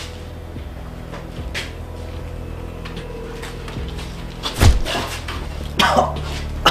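A few sharp knocks and clanks over a low steady hum. The loudest comes about four and a half seconds in, and two more follow near the end.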